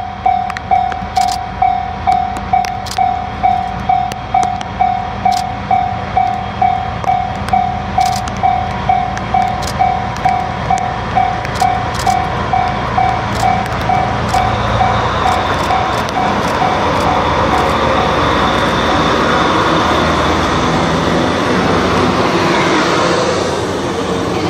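A JR Freight DF200 diesel-electric locomotive pulling out with a container freight train, its engine noise building as it nears and passes, followed by the container wagons rolling over the rails. Through the first half a warning bell dings steadily about twice a second, then is drowned out by the train.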